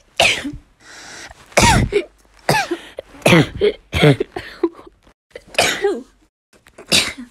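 A person sneezing over and over, about seven short, sharp sneezes roughly a second apart, each falling in pitch.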